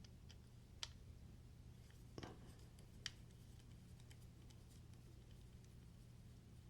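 Near silence with three faint, short clicks about a second apart: a screwdriver bit and knife parts touching while the folding knife's pivot screw is worked loose.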